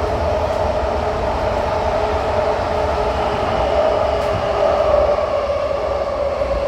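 Kawasaki–CRRC Qingdao Sifang CT251 metro train heard from inside the car while running between stations: a steady deep rumble with a continuous drone.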